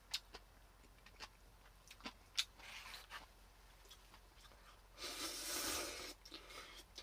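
Scattered light clicks and taps, with a rustling, scraping noise lasting about a second near the end: small objects being handled at close range.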